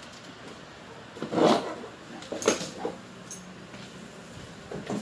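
Handling noises as a wire is pulled and pressed along a motorcycle frame: a few short scraping, rustling bursts, the loudest about a second and a half in and another about two and a half seconds in.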